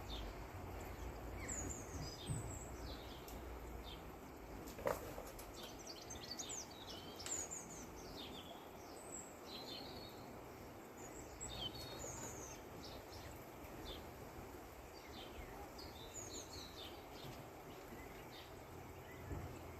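Small birds chirping and twittering in short, high, quick calls over a faint steady outdoor hiss, with a single sharp tick about five seconds in.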